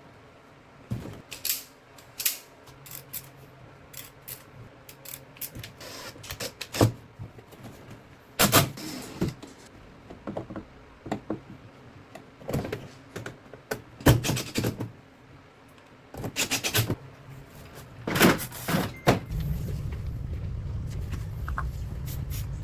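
Scattered metallic clinks and knocks of tools and parts being handled during air-conditioner installation work. A steady low hum starts about nineteen seconds in.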